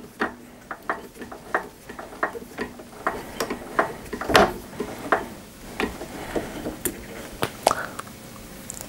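Threading die cutting a thread on a 12 mm bar in a Warco WM180 lathe, the chuck turned by hand: a run of irregular metallic clicks and ticks, about two or three a second, one louder about halfway through.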